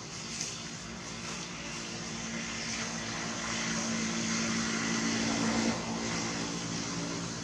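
An engine passing by: a steady hum that grows louder to a peak about six seconds in, then drops in pitch as it moves away.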